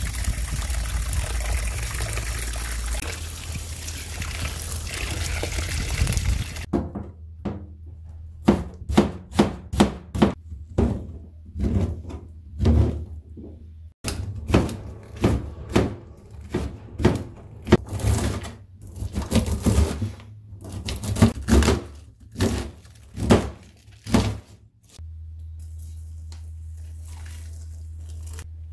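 Running water splashing over hands and bean sprouts in a metal pot for the first six seconds or so. Then a kitchen knife chopping oyster mushrooms on a plastic cutting board, with irregular sharp knocks one or two a second. Near the end there is a low steady hum and hot water pouring faintly from an electric kettle into a bowl.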